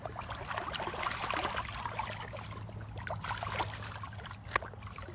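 Water splashing and trickling in small irregular splashes, with one sharp click about four and a half seconds in.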